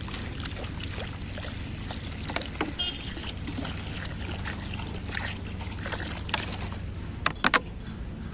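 Water poured from a large plastic bottle into a plastic tub, splashing and gurgling steadily. A few sharp knocks near the end.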